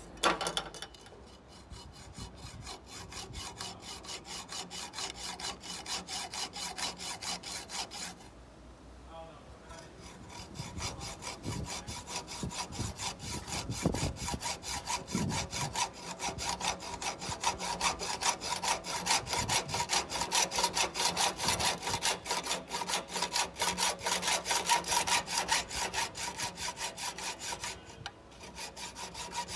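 Hacksaw cutting through a car's metal A/C pipe beside its crimped hose ferrule, in rapid even back-and-forth strokes with a short pause about eight seconds in and another near the end. It is the pipe end being cut off so that a new hose can be fitted.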